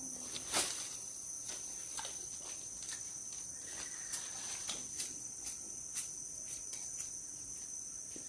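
Insects shrilling steadily in two high-pitched tones, with scattered light clicks and knocks.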